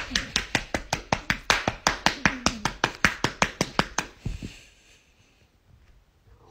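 A hand patting a bulldog's rump in a quick, steady rhythm, about five pats a second, stopping about four seconds in.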